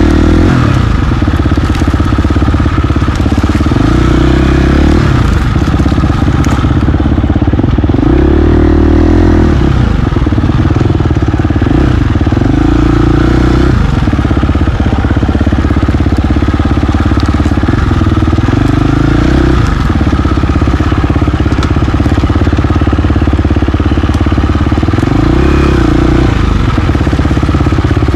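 KTM 350 XC-F single-cylinder four-stroke dirt bike engine running loud as it is ridden along a trail. The revs rise and fall about five times as the throttle is opened and closed.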